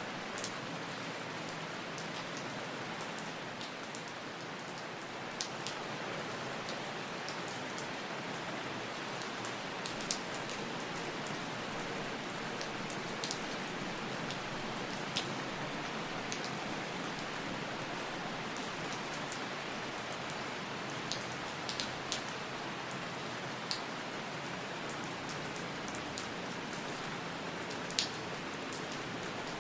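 Steady rain falling, a continuous even hiss with scattered sharp drips and drop ticks every second or two.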